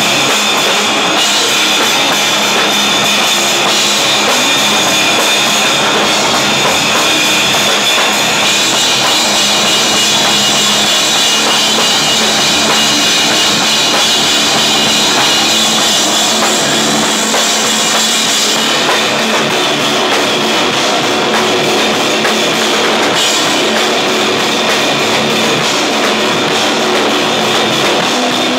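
Rock band playing live and loud: drum kit with cymbals and electric guitar in one dense, steady wall of sound.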